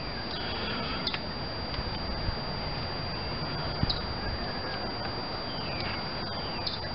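Steady outdoor background hiss with a couple of short, falling bird chirps and a few faint clicks.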